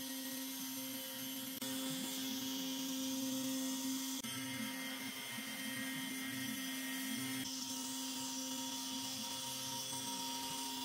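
DeWalt router on an X-Carve CNC machine spinning at a steady pitch while its small end mill cuts curved profile grooves through a merbau board. The cutting noise shifts abruptly a few times.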